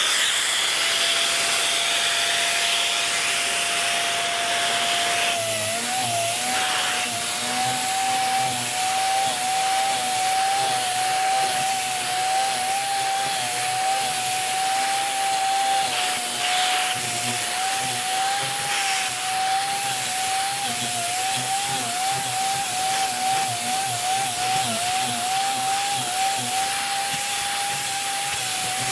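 Dyson Big Ball Animal cylinder vacuum running: a steady motor whine over the hiss of suction. From about five seconds in, the tangle-free turbine tool is worked back and forth over a pet-hair-covered fabric throw, and the whine wavers with each stroke.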